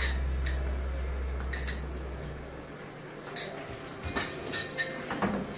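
A spoon clinking against a small glass bowl and a spatula knocking on the karahi, as scattered light clinks that come thicker in the second half. A low hum runs underneath and stops about halfway through.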